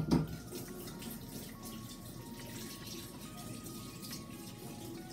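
Kitchen faucet running water into the sink in a steady stream, with a knock right at the start.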